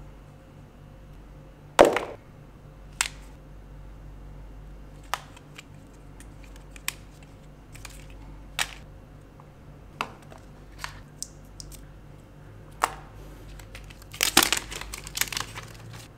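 Hands handling a smartphone, its accessories and their packaging: scattered clicks and taps as pieces are picked up and set down, the loudest about two seconds in, and a short burst of rustling and crinkling near the end, over a steady low hum.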